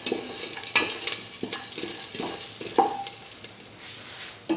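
A spatula scrapes and taps round a steel pan, stirring garlic, ginger and spice seeds frying in a little oil, with a light sizzle under it. One stroke about three seconds in makes the pan ring briefly, and a sharper knock on the pan comes near the end.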